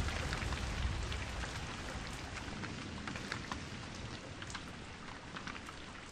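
Rain falling, with many single drops striking a hard surface among the steady hiss, gradually fading out.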